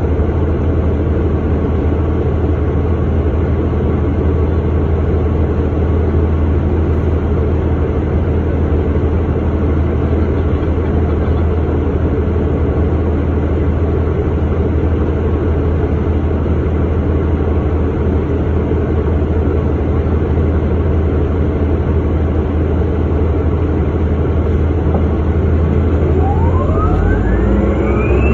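2009 Orion VII Next Generation hybrid bus, with a Cummins ISB 6.7 diesel and BAE HybriDrive system, running steadily with a constant low drone. Near the end a rising whine begins as the hybrid electric drive speeds up.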